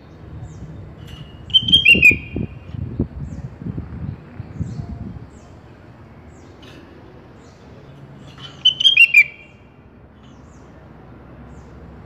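Sooty-headed bulbul (kutilang) calling: two short phrases of quick, descending whistled notes, about seven seconds apart, with faint chirps between them. A low rumble sits underneath the first few seconds.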